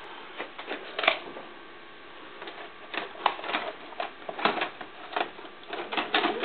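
VHS cassette being pushed into the front slot of a Thomson VCR and taken in by its loading mechanism: a series of irregular plastic clicks and clunks.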